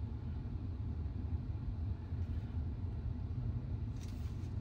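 Steady low rumble of background noise inside a car cabin, with a short hiss about four seconds in.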